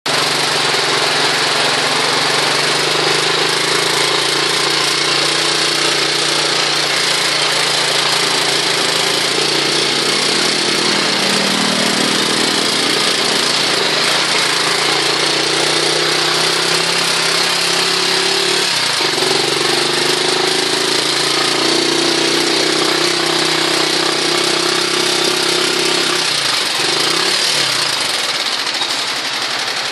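Heavy rain and tyres splashing through floodwater, over the steady drone of a vehicle engine that rises and falls a little in pitch.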